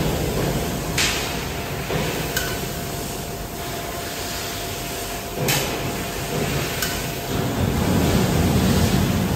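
HSG TL660S heavy-duty tube laser cutting machine running, its chucks turning a large metal pipe as it cuts: a steady low mechanical rumble broken by a handful of sharp clicks. The rumble grows stronger near the end.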